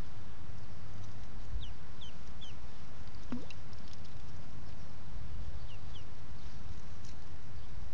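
Week-old ducklings peeping: short, high, falling peeps in twos and threes, about two seconds in and again near six seconds, with one rising call between, over a steady low rumble.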